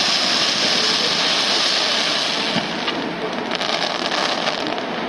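Aerial fireworks crackling: a dense, rain-like hiss of crackling stars that thins after about two and a half seconds into scattered sharp pops.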